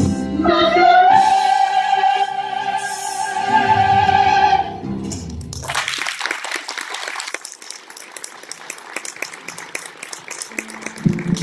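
A group of singers holds a final high note over piano, bass and drums, which cuts off about five seconds in. Audience applause follows and continues to near the end.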